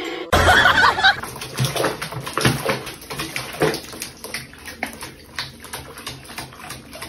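Water splashing and sloshing in a small sink as a cat is bathed in soapy water, in irregular small splashes that are loudest in the first second.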